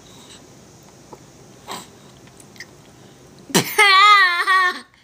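A toddler's high-pitched, wavering laugh bursts out about three and a half seconds in and lasts about a second.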